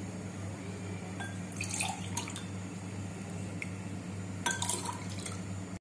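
Litchi juice poured from a steel ladle into a drinking glass twice, with splashing and light clinks of metal on glass.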